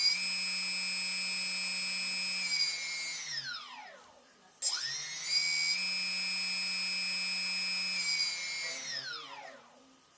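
ReadyToSky brushless RC drone motor running at a steady high whine, then winding down to a stop; it spins up again sharply, holds the whine for a few seconds and winds down once more near the end.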